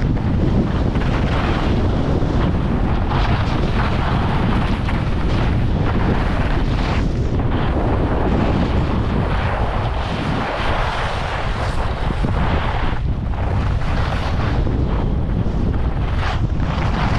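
Wind buffeting the GoPro's microphone in a steady low rumble while skiing downhill, with the hiss and scrape of skis on snow swelling and fading through the turns.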